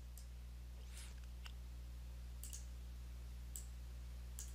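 About half a dozen faint computer mouse clicks, spaced irregularly, over a steady low electrical hum.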